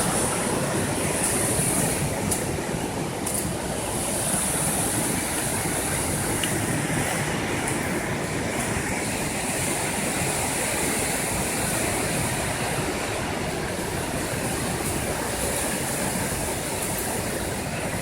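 The Birs river in flood, rushing fast and full after days of heavy rain: a steady, even roar of fast water with a bright hiss.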